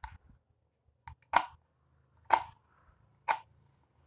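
Kitchen knife chopping peeled beetroot on a wooden cutting board: three sharp knocks of the blade striking the board, about a second apart, with a few lighter taps before them.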